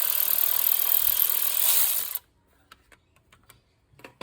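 A pressurised spray hissing steadily while cleaning out the engine's crankcase breather part, stopping suddenly about two seconds in. A few light clicks follow.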